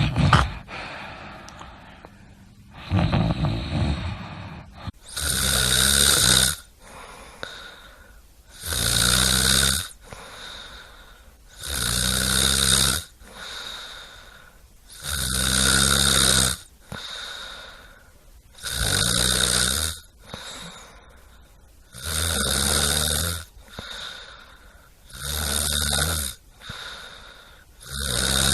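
A person snoring in a steady rhythm: a loud, buzzing snore about every three seconds, with softer breaths between.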